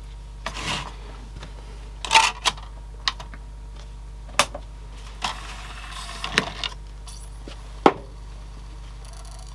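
Sony mini CD player's disc tray being loaded: a series of plastic clicks and knocks as a CD is set on the open tray, a short mechanical whirr, and one sharp clack near the end as the tray closes.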